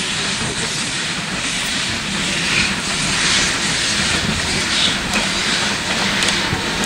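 Steam-hauled special train of vintage passenger coaches rolling past on the rails, a steady rumble with a hiss of steam.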